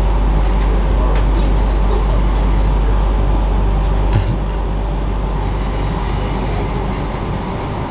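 Passenger train running, heard from inside the carriage: a steady deep rumble from the wheels and running gear, with a light knock about four seconds in.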